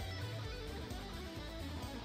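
Quiet background music led by guitar, over a pulsing bass line.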